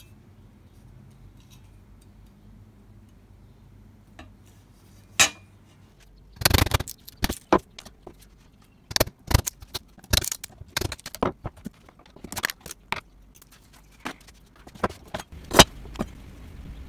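After a few quiet seconds, an irregular run of sharp knocks and metallic clinks as a hand tool works the old, split wooden handle off a rusty cleaver's tang.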